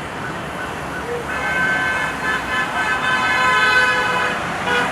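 Traffic noise from a jammed road, with a vehicle horn sounding in a long blast from about a second in for around three seconds, and another horn near the end.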